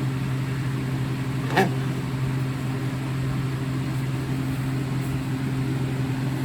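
Steady low mechanical hum, with one brief sharp sound about a second and a half in.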